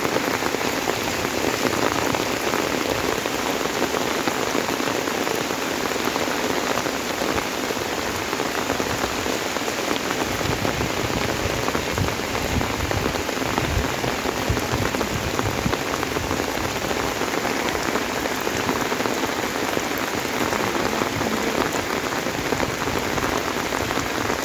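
Heavy rain falling steadily, an even, dense hiss of downpour on the road and ground.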